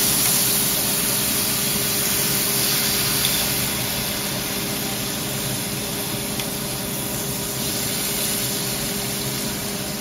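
Marinated snapper fillets sizzling steadily on a hot flat griddle, with a faint low hum underneath.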